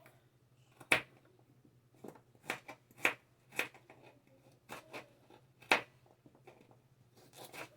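Irregular sharp taps and clicks of kitchen items being handled while preparing carrots for a drink, about a dozen over several seconds.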